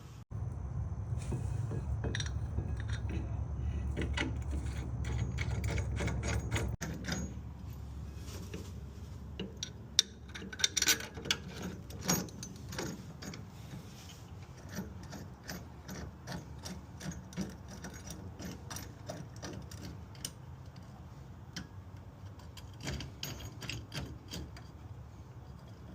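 Metal hand tools and hardware clicking and clinking as a big-brake caliper and its bolts are fitted to the hub, with a few sharper knocks about ten to twelve seconds in. A steady low hum runs under the first several seconds.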